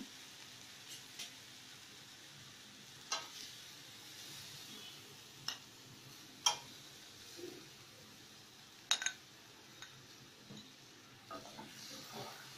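Metal spatula scooping stir-fried vegetables out of a metal kadai, with a handful of sharp clinks and taps against the pan a second or two apart. A faint sizzle from the still-hot pan runs underneath.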